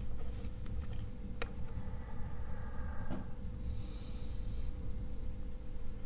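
Small electronic components handled at a workbench: a light click about a second and a half in and a few faint ticks as resistor leads are bent, with a soft breath out through the nose about four seconds in, over a steady low background hum.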